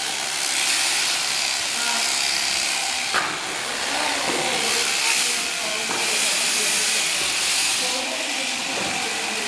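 Electric shearing handpiece running as it cuts through alpaca fleece: a steady hissing buzz, with one brief click about three seconds in.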